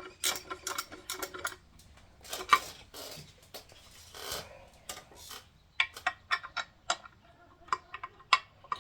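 Light metallic clicking and tapping of bolts and a small hand tool as the bolts of a timing cover are run in: a quick run of clicks at first, then scattered single clicks in the second half.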